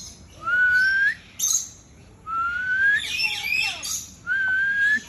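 A bird giving three drawn-out, slightly rising whistles about two seconds apart, with shorter chirps and a brief squawk between them.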